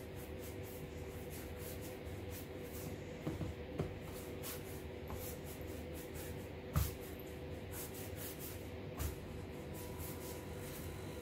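Hands rolling a strand of challah dough on a floured wooden board: soft rubbing, with a few light knocks, over a faint steady hum.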